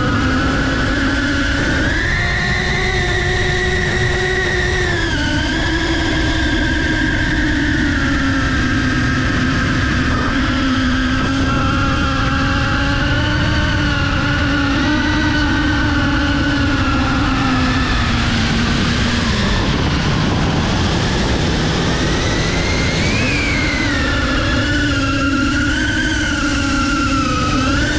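FPV quadcopter's brushless motors and propellers whining, the pitch gliding up and down with the throttle, over a rush of wind and prop wash. The whine sags for a moment past the middle and surges again a few seconds later.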